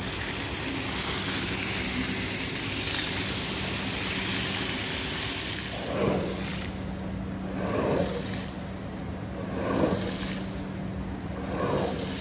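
Water spraying onto a wet rug in a steady hiss for about six seconds, then slow swishing strokes across the soaked pile about every two seconds, over a steady low machine hum.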